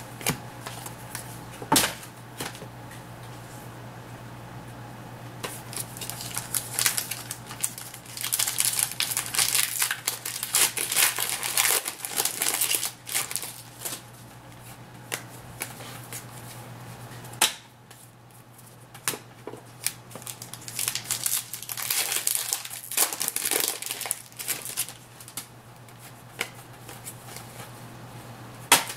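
Trading-card pack wrappers crinkling and cards being handled, in irregular bursts of rustling, with two sharp clicks, one near the start and one a little past the middle.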